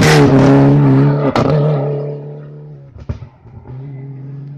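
Rally car on a special stage passing close under hard throttle, its engine note held steady and getting quieter over the second half as it pulls away. Two sharp cracks cut through, one about a second and a half in and another near three seconds.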